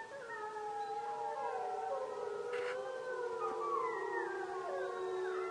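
A wolf pack howling in chorus: several overlapping howls rising and falling in pitch, with short falling yips joining in after about four seconds.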